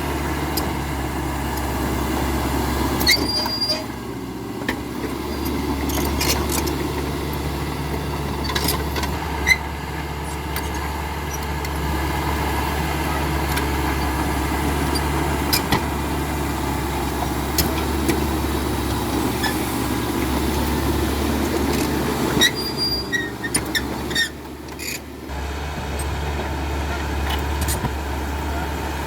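Caterpillar D5K XL crawler bulldozer's diesel engine running steadily under work, with occasional short sharp clanks. The engine sound dips briefly near the end.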